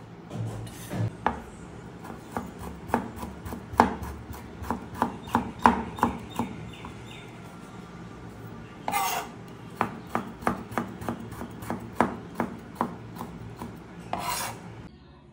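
Kitchen knife chopping onions and tomatoes on a plastic cutting board: a run of sharp, irregular taps of the blade striking the board. Two longer rasping sounds come through, about nine seconds in and again near the end.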